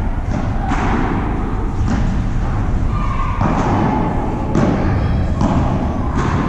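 Padel rally: the ball struck by solid padel rackets and bouncing off the court and the glass walls, about six sharp thuds roughly a second apart over a steady low rumble.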